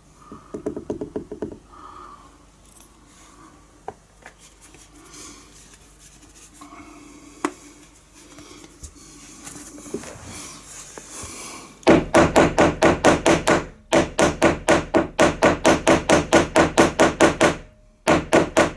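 A hammer tapping a glued 10 mm wooden dowel into a drilled-out hinge screw hole: a fast run of sharp strikes, about four a second, starting about two-thirds of the way in, with a brief pause and a last few strikes near the end. Before the hammering, only faint handling sounds.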